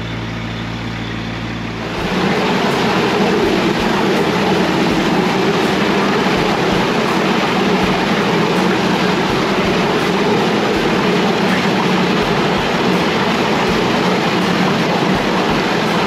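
A vacuum truck's engine idling. About two seconds in, a louder, steady rushing noise from the sewer jetter takes over, with faint regular ticking, while its high-pressure hose works about 50 feet inside a culvert pipe breaking dirt loose.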